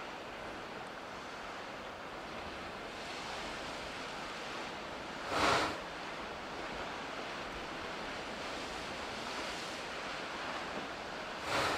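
Waves surging into the ice cave of a blown-out ice volcano over a steady surf wash, each surge giving a short breathing whoosh: once midway and again at the very end, about six seconds apart.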